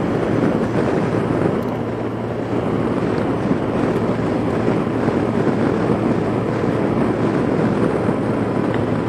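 Steady wind rush on the microphone with the even hum of a Yamaha FJR1300A's inline-four engine and tyres, cruising at a constant highway speed of about 100 km/h.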